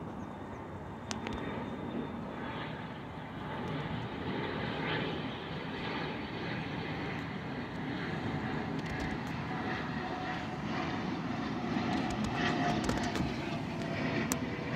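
Pilatus PC-24 business jet's twin turbofan engines on approach: a steady rushing jet noise that slowly grows louder.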